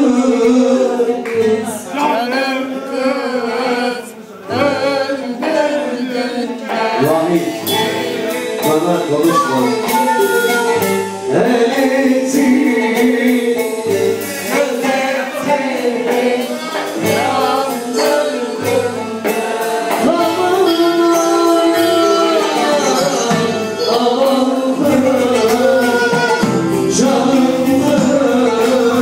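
Male voices singing a song over instrumental accompaniment with a rhythmic beat.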